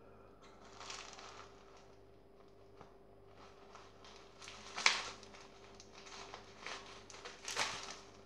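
Bubble wrap crinkling and rustling as it is handled and cut open with scissors, with a few sharper snips and crackles, the loudest about five seconds in.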